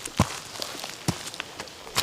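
Footsteps climbing earthen steps: two firm footfalls about a second apart, with light gritty scuffs between them.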